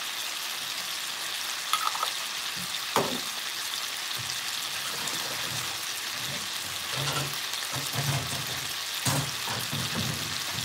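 Chicken thighs sizzling steadily in a frying pan in a soy sauce and sake mixture, with a few sharp pops of spattering.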